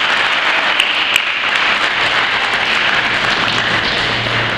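Audience applauding: a steady wash of clapping, with a few single sharp claps standing out in the first second or so.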